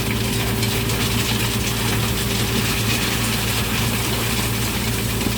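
Heavy diesel engine idling steadily under an even hiss.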